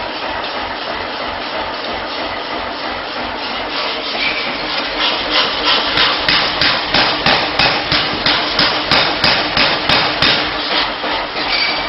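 Rapid metal-on-metal hammer blows, about three a second, as an induction-heated steel bar is forged into a U shape; they start around five seconds in and stop near the end, over a steady workshop machinery hum.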